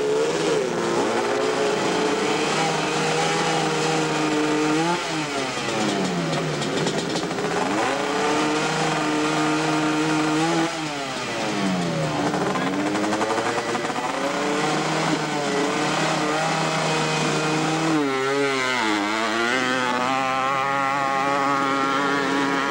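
Hillclimb ATV engine held at high revs at the bottom of the hill, the revs dropping and climbing back several times. Near the end it pulls away under full throttle up the slope.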